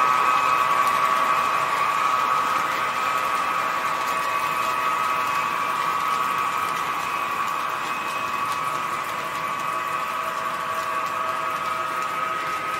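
O scale model train running past on three-rail track: wheels rolling and a steady mechanical hum from the MTH ES44AC diesel locomotive and its cars. It slowly fades as the train moves away.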